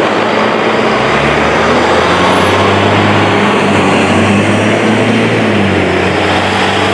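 Bus engine running steadily under a loud, even hiss, with a faint high whine rising about two seconds in.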